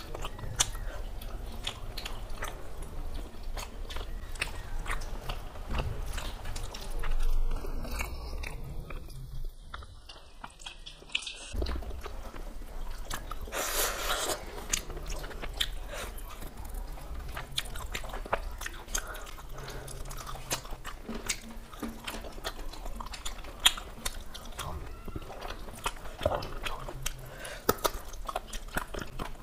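Close-up eating sounds of two people eating curry and rice by hand: wet chewing and biting into pieces of meat, with many small clicks and smacks of the mouth.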